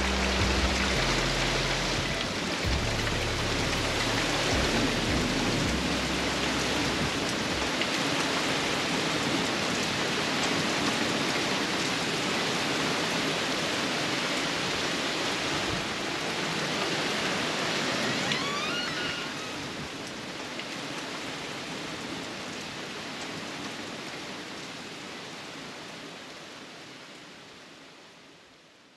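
Heavy rain pouring steadily, with music's low bass notes underneath for the first several seconds. A brief high chirp sounds about two-thirds of the way through, and the rain fades out near the end.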